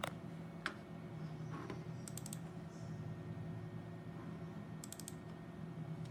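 Computer mouse clicking: a few single clicks, then two quick runs of several rapid clicks, over a steady low hum.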